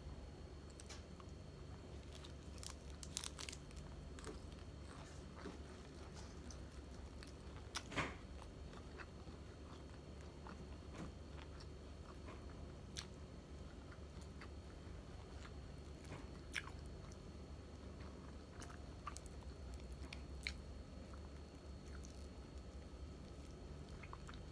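Chewing and small crunches from eating fried tilapia and lettuce by hand, with scattered light clicks of fingers picking at the fish. A few sharper clicks stand out, one about a third of the way in and one at the end, over a steady low hum.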